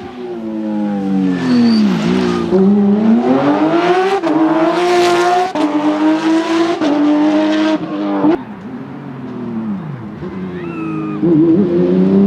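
Porsche 911 GT3's flat-six engine driven hard. The pitch falls early on, then climbs through the revs in a series of quick upshifts, each one dropping the pitch. About eight seconds in it eases off, and it builds again near the end.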